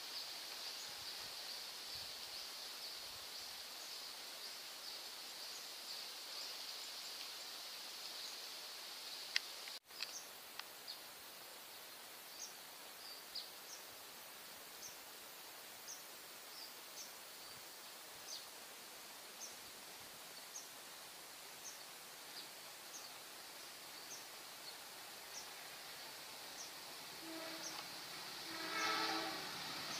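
Steady high insect drone with short chirps repeating about once a second, and a sharp click about nine seconds in. Near the end a diesel locomotive's horn sounds as the train approaches.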